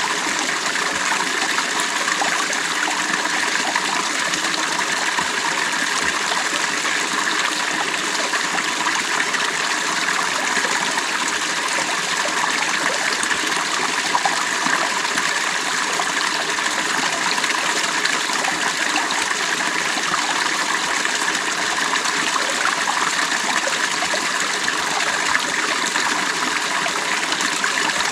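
Creek water running over stones, a steady, unbroken rush and trickle.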